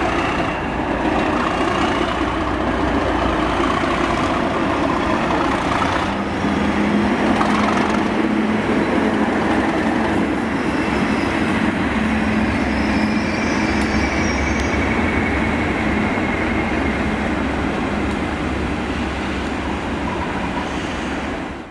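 Class 37 diesel-electric locomotive with its English Electric V12 diesel engine running under power as it passes at close range, a loud, steady diesel engine sound.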